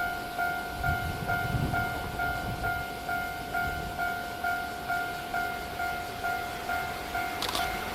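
Japanese railway level crossing warning bell ringing, an electronic two-tone ding repeating about twice a second, signalling that a train is approaching. A low rumble rises briefly about a second in.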